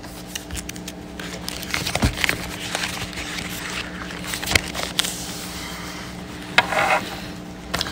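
Scattered soft paper rustles and small clicks, as Bible pages are turned to find a passage, over a steady low hum.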